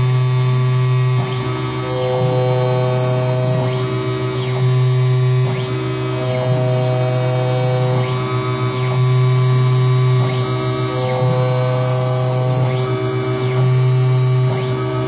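CNC digital cutting machine with an Ecocam EOT-3 electric oscillating knife running: a steady low hum, with motor whines that rise and fall every second or two as the cutting head moves and changes direction.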